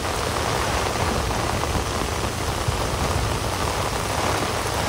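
Heavy rain falling steadily on a wet road and roadside trees, a dense, even hiss without let-up.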